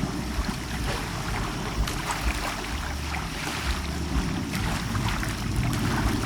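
Bay water lapping, a steady wash of water with small scattered splashes, with wind rumbling on the microphone.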